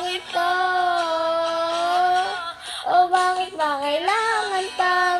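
A young boy singing a Filipino song, with long held notes: one sustained line for about two seconds, a short break, then a phrase that slides up in pitch.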